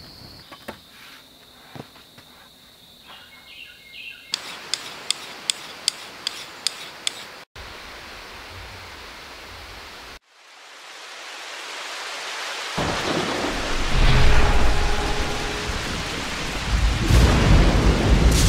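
Faint clicks, then a run of evenly spaced clicks about three a second, then from about ten seconds in a thunderstorm sound effect swells up: rumbling thunder and rain that grows loud.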